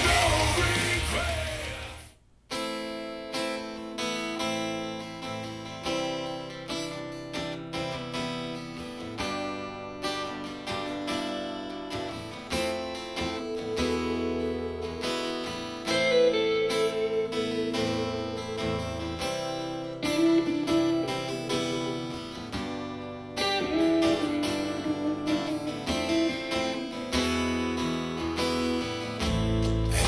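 Music played over JBL Synthesis 1400 Array BG loudspeakers in a listening room. A loud rock track fades out over the first two seconds. After a brief silence, an acoustic guitar track starts, with plucked strings over a bass line.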